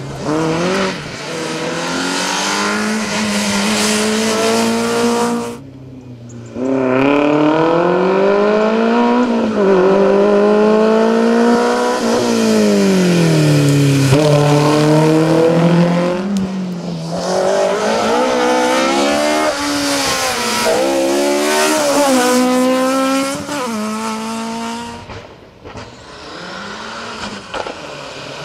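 Rally car engines at full throttle, the pitch climbing and dropping repeatedly as they change gear. The sound drops away briefly a few seconds in, then carries on.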